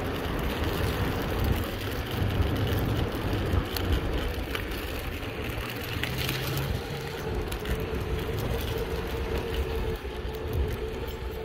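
Mountainboard wheels rolling over pavement, a steady gritty rumble. A faint steady hum joins about two-thirds of the way through.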